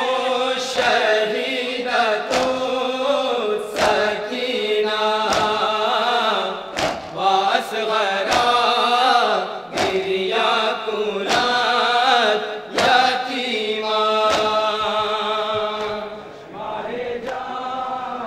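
A group of men chanting an Urdu noha (Shia lament) in unison into a microphone. Sharp slaps of matam, hands striking the chest, come in time about every second and a half.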